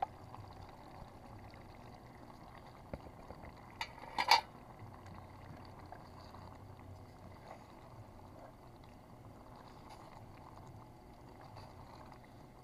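Pot of paneer and pea curry cooking, a faint steady bubbling of the gravy after the paneer has gone in. A few light clicks and one short clank about four seconds in.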